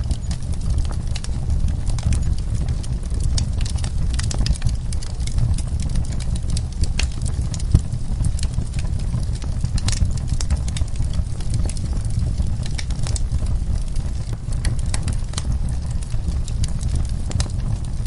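Wood logs burning in a fireplace: a steady low rumble of flames under irregular sharp crackles and pops, several a second.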